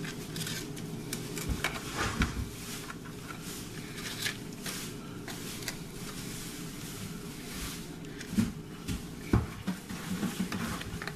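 Crisp corn tortilla shells being set down one after another in a disposable aluminium foil pan: scattered light taps, rustles and crinkles, with a couple of sharper clicks about eight and nine seconds in.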